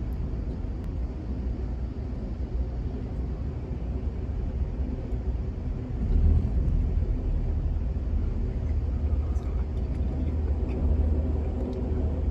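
Steady low rumble of a moving Amtrak passenger train heard from inside the car, its wheels running on the rails as it passes a standing container train; the rumble gets louder about halfway through.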